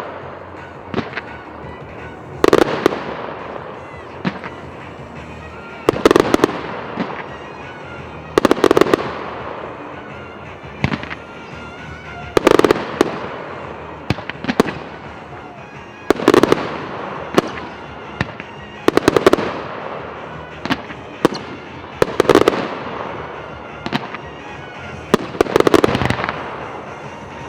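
Aerial fireworks shells bursting outdoors: about eight loud booms, roughly one every three to four seconds, some doubled into quick clusters of cracks. Each boom trails off in echo, with smaller pops in between.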